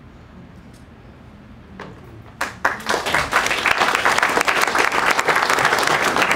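Audience applause: after a quiet pause, a few scattered claps about two seconds in, swelling into steady applause from about three seconds.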